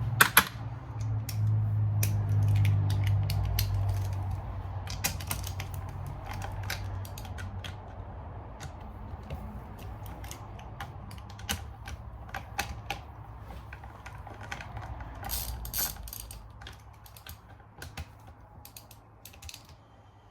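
Ratchet wrench clicking and metal tools knocking while the bolts on a Suzuki LTR 450 engine's top end are loosened, in irregular runs of clicks.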